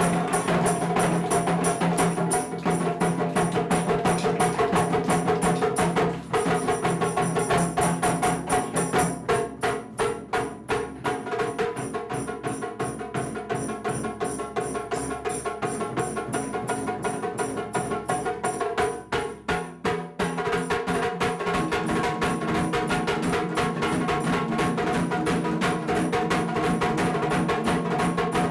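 Wadaiko ensemble playing: rapid, driving strikes on Japanese taiko drums, with sustained pitched tones running underneath.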